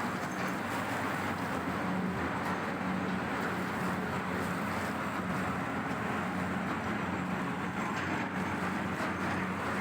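Tata Hitachi excavator's diesel engine running at a steady speed, an even hum with no change in pitch.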